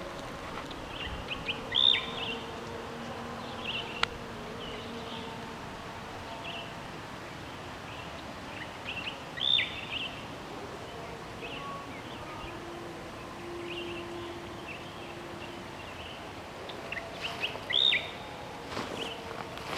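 Bird calls: a sharp, high call that sweeps quickly downward comes three times, several seconds apart, with fainter chirps in between over steady outdoor background noise. A single sharp click comes about four seconds in, and rustling near the end.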